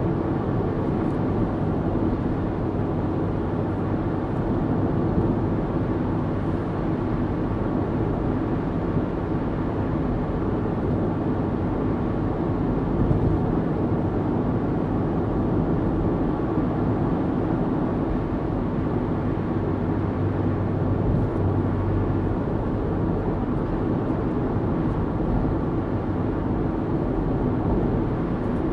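Road noise inside a car cruising at a steady 60 mph on a motorway: a low, even rumble with a faint steady hum underneath.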